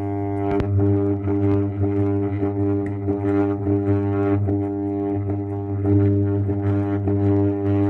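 An armature growler (armature tester) hums steadily and loudly while a hacksaw blade is held over the Makita BO6030 sander's armature. The blade does not stick to the armature, which shows it has no shorted windings.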